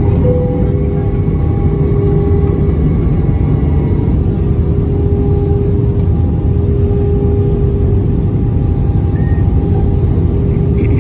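Cabin noise inside an Airbus A320 airliner descending on approach: a steady rumble of engines and airflow with an even hum running through it.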